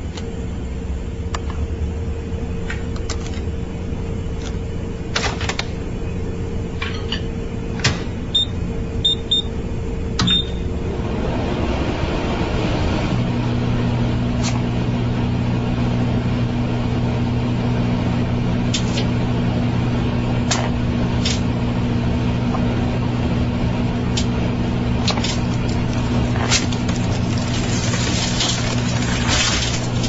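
Microwave oven running with its steady electrical hum, with a cellphone inside. Sharp cracks and pops come scattered throughout. About a third of the way in there are a few short high beeps, and soon after the hum turns deeper and louder and stays that way.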